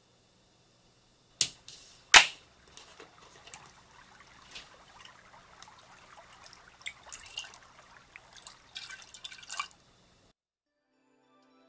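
Two sharp knocks, the second louder, then milk being poured into a stainless steel saucepan: a light, splashing pour with small clicks that stops about ten seconds in.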